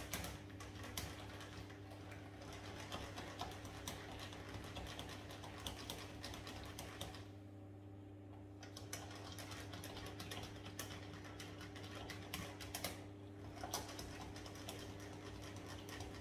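Wire whisk clicking and scraping against a stainless steel saucepan as a milk-and-egg pastry cream is stirred on the hob, in quick irregular taps with a short pause about halfway through, over a steady low hum.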